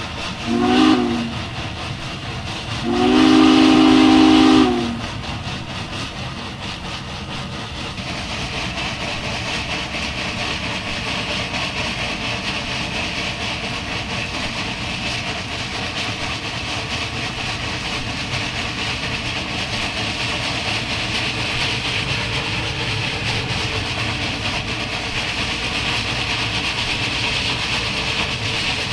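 DMIR 2-8-8-4 Yellowstone steam locomotive No. 225 sounding its chime whistle, one short blast and then a longer one, then running on with a steady, even sound at speed.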